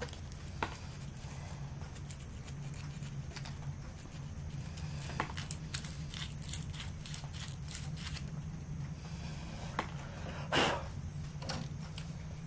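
Light clicks and taps of small plastic clock parts being handled and fitted by hand, over a steady low hum. A short, louder rasping noise comes about ten and a half seconds in.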